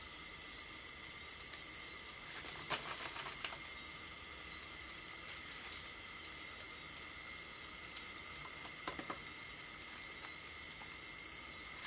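Steady high-pitched chorus of night insects, several unbroken tones laid over a hiss. A few faint rustles and clicks come about three seconds in and again near nine seconds, as branches are handled.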